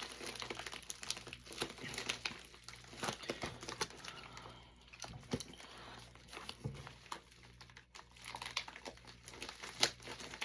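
Packaging crinkling and rustling in irregular handfuls as a mail package is unpacked by hand.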